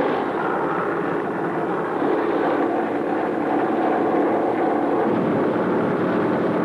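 Boeing B-17 Flying Fortress's Wright Cyclone radial engines running at taxi power as the bomber starts to roll, a steady drone.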